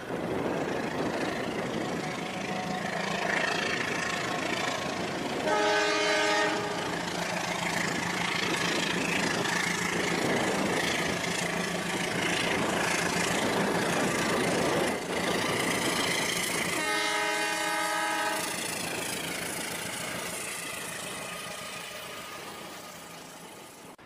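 Toy train running along plastic track, its horn sounding twice, each blast about a second long and some ten seconds apart. The running noise fades near the end as the train moves away.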